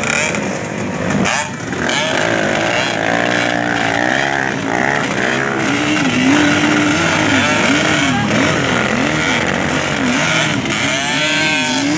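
Dirt bike engines revving, one revved up and down over and over, typical of a bike bogged in deep mud with its rider working the throttle while it is pushed. Near the end another engine climbs in pitch.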